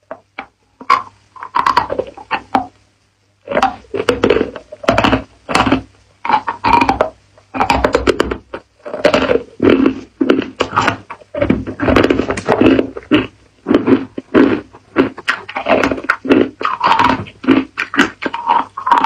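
Hard ice being bitten and chewed in the mouth close to the microphone: loud, irregular crunching. A few separate crunches come at first, then near-continuous crunching from about three and a half seconds in.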